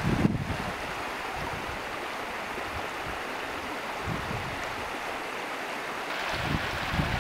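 Winter floodwater rushing steadily past ice and snow along a road. Wind rumbles on the microphone in the first half second and again near the end.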